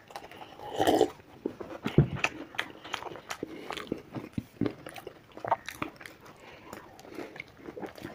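Two people biting and chewing fried samosas, with many small crunches and mouth clicks. A single low thump about two seconds in.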